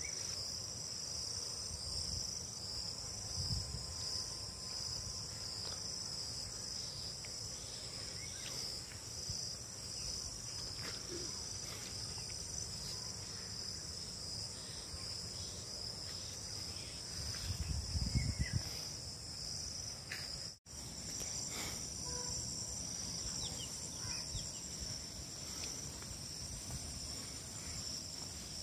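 Steady, high-pitched chorus of insects trilling in fields and trees. A brief low rumble on the microphone comes about two-thirds of the way in.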